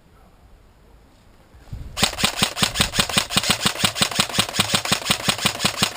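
Airsoft gun firing a long automatic string at about eight or nine shots a second, starting about two seconds in after a quiet stretch.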